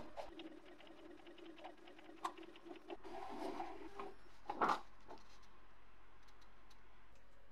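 Epson L310 inkjet printer running as it feeds out a printed page: a steady motor hum with light clicks that stops about four seconds in. Just after, a short loud rustle of the paper sheet being pulled from the printer.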